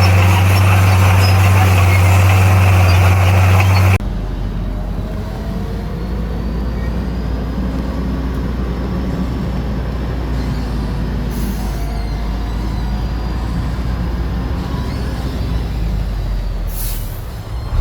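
Heavy diesel engine of construction machinery running loud and steady, cutting off abruptly about four seconds in to a quieter, lower engine rumble. A short hiss near the end.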